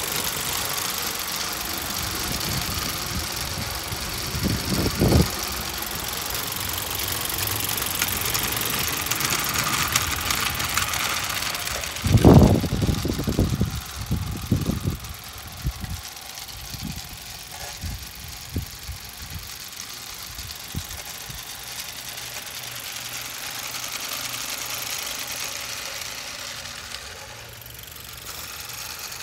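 Small 16 mm scale live-steam tram locomotive running under steam with a short train of wagons: a steady hiss of steam and a rapid beat, which dips near the end. A few loud low thumps come partway through.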